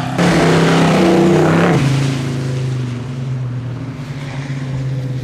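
A vehicle engine running with a steady drone. About a quarter second in it suddenly gets much louder, revving hard for about a second and a half, then drops back to the steady drone.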